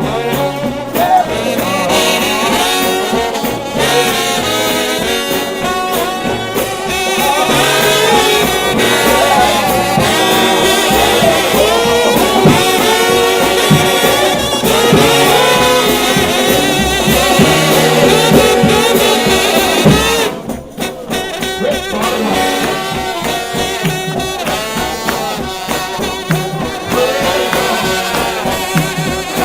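Trombone-led brass shout band playing loudly. The music breaks off briefly about twenty seconds in, then carries on a little softer.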